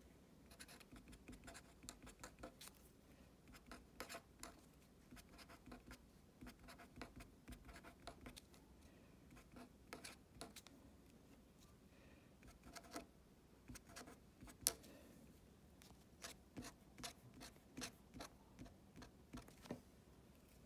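Faint scratching and tapping of a felt-tip pen writing numbers on a paper worksheet, in short irregular strokes. One sharper click stands out near the three-quarter mark.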